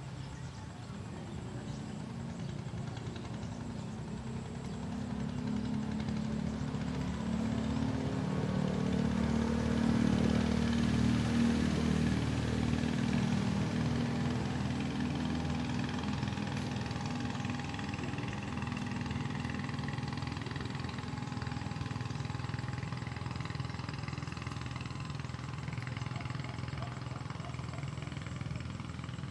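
An engine running steadily, growing louder to a peak about ten seconds in and then settling a little lower.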